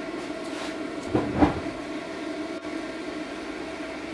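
Gas forge's air blower running with a steady hum, and about a second in a short, low burst as the forge's gas ignites.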